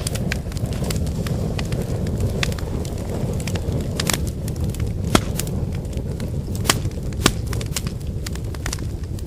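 Firewood fire burning: a steady low rumble of flames with sharp crackles and pops from the burning wood, coming at irregular moments, a few of them loud.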